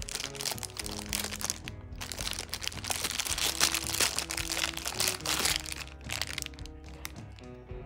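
Thin LDPE plastic bag crinkling and crackling as it is pulled off a plug-in power adapter, loudest around the middle, over background music.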